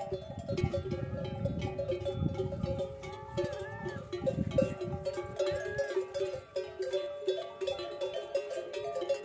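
Instrumental background music: steady held notes with a melody that rises and falls over them.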